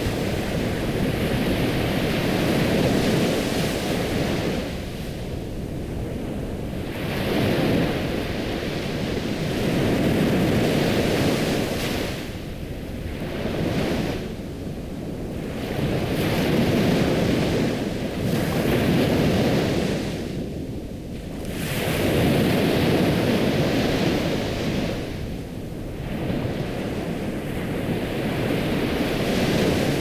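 Ocean surf: waves breaking and washing in, the rush swelling and ebbing about every five or six seconds.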